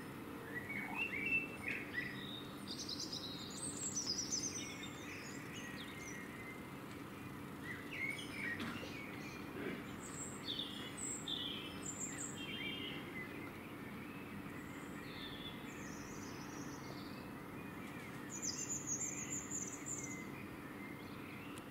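Small songbirds chirping and singing in scattered short phrases, over a faint steady low hum.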